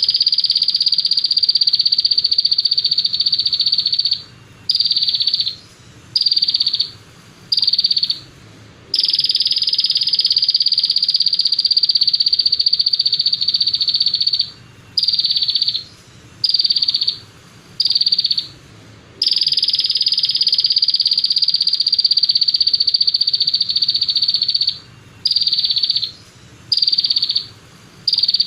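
A masteran recording of a songbird's high, buzzing trill, looped in a repeating pattern. Each round is one long trill of about five seconds followed by four short trills about a second apart.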